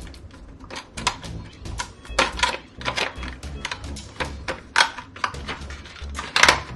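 Scissors snipping and crunching through a cardboard SSD retail box, with irregular clicks and crinkling from the packaging being handled. The loudest snips come near the end.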